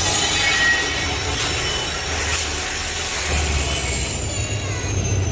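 Goods train behind a WDG-4 diesel locomotive rolling past, the wagons' wheels rumbling steadily on the rails. There are two sharp clacks in the first half, and a faint high whine slowly falls in pitch later on.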